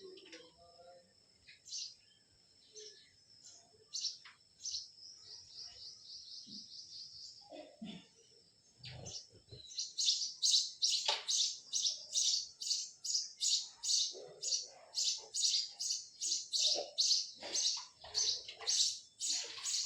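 Small birds chirping: scattered high calls and a short trill at first, then from about ten seconds in a fast, even run of loud high chirps, about two or three a second.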